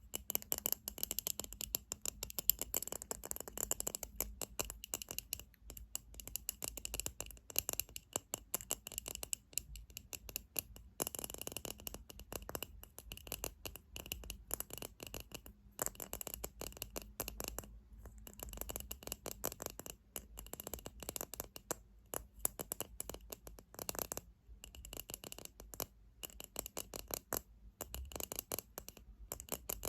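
Rapid fingernail tapping on objects: dense, quick, crisp clicks with a few brief pauses.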